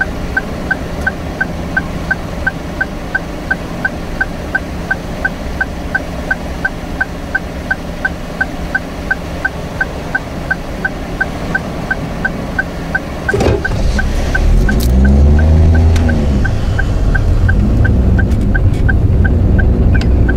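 Turn-signal indicator ticking steadily in the cabin of a Daihatsu Move Custom, about two or three even ticks a second. About 13 seconds in, the car's three-cylinder engine rises in pitch as it pulls away, and the ticking goes on under it.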